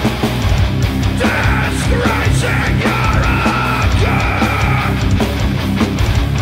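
Doom metal band playing live: heavily distorted electric guitars and bass over pounding drums, with a held higher-pitched part over the riff from about a second in until shortly before the end.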